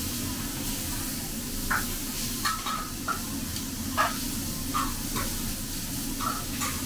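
Chicken and beef sizzling on a steel teppanyaki griddle, a steady hiss, while a knife and spatula click and scrape against the hot plate about eight times as the meat is cut and turned.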